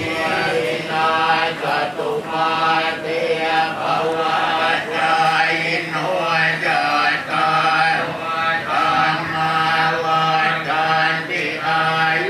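A group of Thai Buddhist monks chanting Pali verses in unison, a steady low drone held on much the same pitch throughout.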